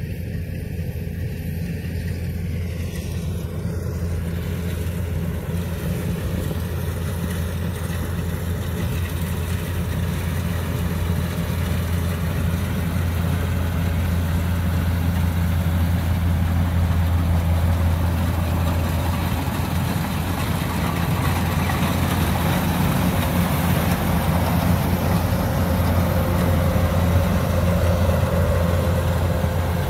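Kubota DC-105X combine harvester running steadily under load as it cuts ripe rice. The engine drone grows gradually louder as the machine comes close.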